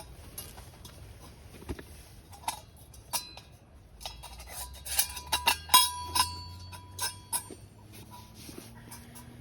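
Metal camp cookware clinking and knocking, with a few scattered clicks at first and then a quick run of sharp, ringing clinks about halfway through.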